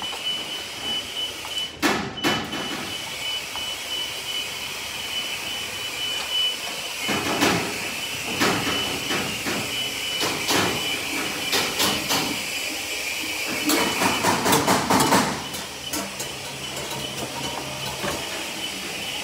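Aerial work platform lift lowering: its motion alarm sounds a high steady beeping over a hiss. Rattles and knocks from the platform come through the middle.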